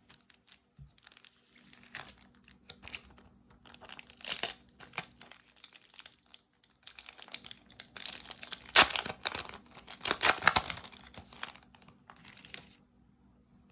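Foil Pokémon TCG booster pack being torn open and crinkled by hand, in irregular crackling bursts, loudest between about eight and eleven seconds in.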